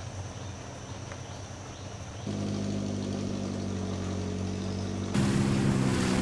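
Engine of a wooden river boat running steadily. The sound steps up abruptly about two seconds in and again near the end.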